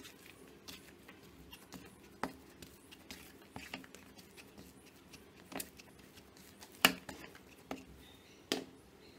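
Hands kneading soft dough in a plastic bowl: quiet squishing with irregular sharp taps and knocks of the bowl and hands, the loudest about seven seconds in.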